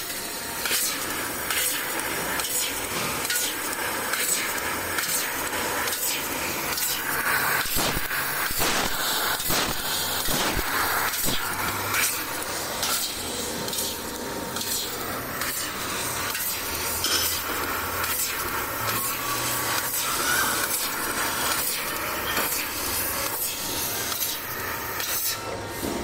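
CNC laser cutting machine cutting a row of small holes in sheet metal: a steady hissing noise with frequent sharp crackling clicks.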